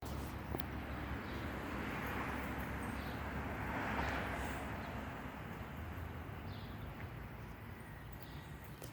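Outdoor background noise: a steady low rumble with a hiss that swells and fades twice, about two and four seconds in, then slowly settles.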